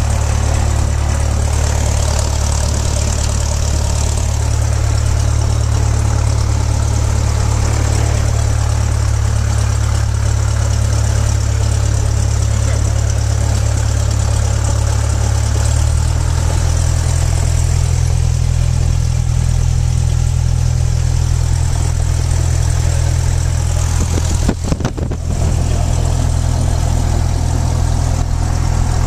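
Single-engine light aircraft's piston engine and propeller running steadily at low taxi power, heard inside the cabin. The engine note steps up slightly about halfway through.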